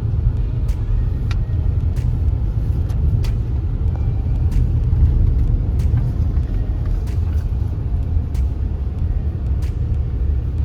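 Car driving slowly, heard from inside the cabin: a steady low engine and road rumble with scattered sharp clicks.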